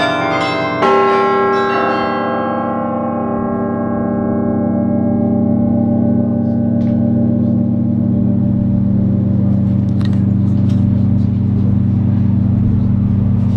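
Carillon bells heard from right beside them in the bell chamber: the last notes strike in the first two seconds, then the bells ring on. The higher notes die away over a few seconds while a deep hum from the biggest bells lingers.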